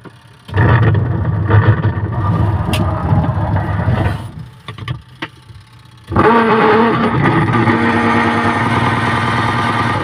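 Godrej washing machine's wash motor and gearbox running, turning the pulsator drive shaft: a loud mechanical hum that runs for about three and a half seconds, stops for about two seconds, then starts again and keeps going.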